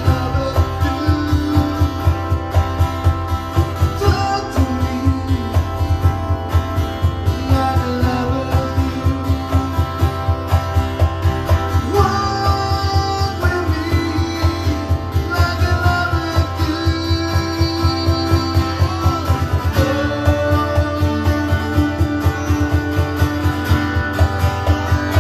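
Live acoustic band music: acoustic guitars strumming over a steady low beat, with a melody line that bends in pitch on top.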